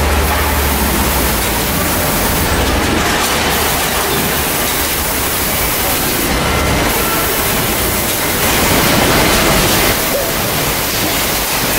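Steady din of a bottling and packaging line's conveyors and machinery running, with a low hum in the first half and short hisses every few seconds.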